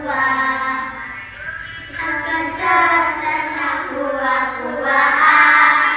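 A song sung in children's voices, with held, melodic notes.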